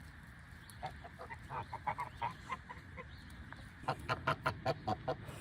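A flock of geese honking: short repeated calls, several a second, starting about a second in and growing louder and denser near the end.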